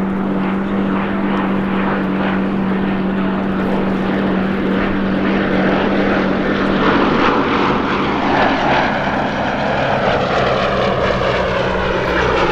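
Westland Lysander's single Bristol nine-cylinder radial engine and propeller running in a flypast. The note holds steady, then drops in pitch about two thirds of the way through as the aircraft passes.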